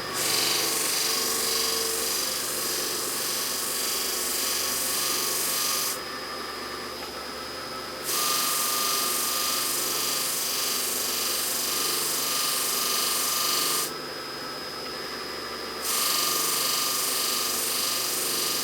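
A VFD-driven bench buffer runs its large rouge-loaded wheels at a slowed speed. The robot presses the workpiece against the wheel in passes of about six seconds, each giving a loud rough buffing hiss, with two lulls of about two seconds where only the buffer's steady motor whine and hum are heard.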